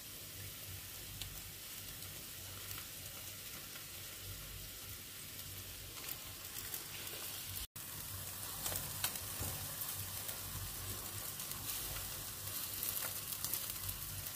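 Marinated chicken pieces sizzling on a Tefal electric tabletop barbecue grill, partway through cooking, with a steady hiss and scattered small pops. The sound cuts out for an instant about halfway through.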